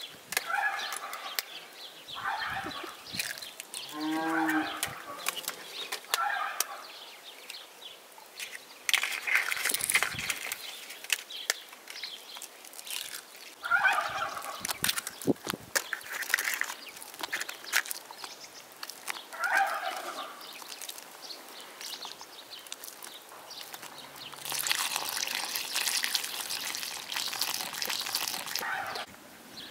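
Farmyard animals calling now and then in short cries that fall in pitch, over soft clicks of hands working eggs into flour in a plastic bowl. Near the end comes a steady splashing hiss of milk being poured into the bowl.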